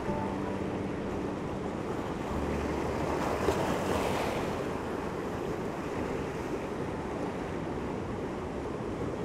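Ocean surf washing steadily over rocks at the shoreline, with some wind noise on the microphone.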